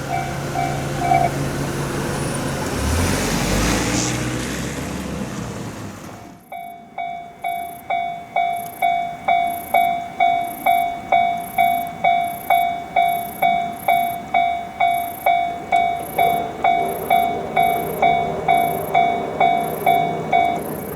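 A train running past a level crossing, its wheels rumbling on the rails, with the crossing bell still ringing for the first second. About six seconds in, a Japanese level-crossing warning bell rings steadily in a clanging 'kan kan' at about two strokes a second.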